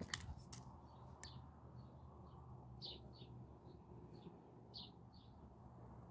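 Faint birds chirping, short high chirps coming every half second to a second, over a quiet background. A few light clicks of parts being handled come in the first second or so.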